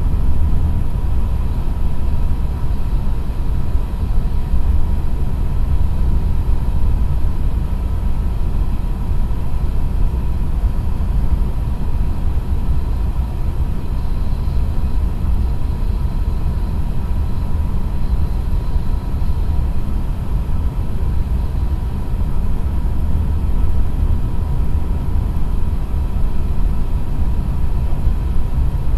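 Cabin noise inside a JR East E6 series Shinkansen cruising at about 300 km/h: a steady, loud low rumble with a thin steady tone above it.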